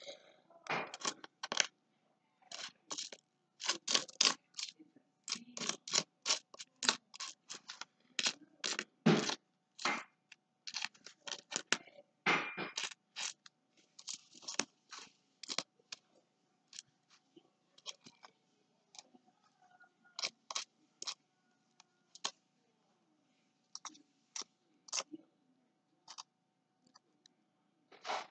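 Pennies clicking against one another and the surface as they are pushed around and sorted by hand, a quick run of small clicks that thins out over the second half.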